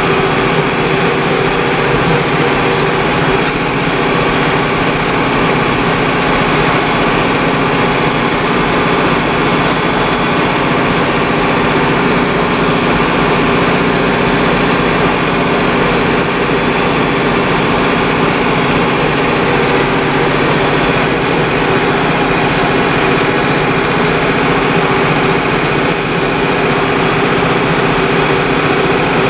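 Tractor engine running steadily at an even speed, heard close from the driver's seat as the tractor drives along.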